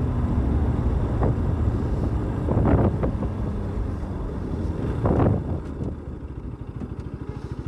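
Motorcycle engine running under way, with a few brief louder swells. About six seconds in it drops to a quieter, evenly pulsing beat as the bike slows.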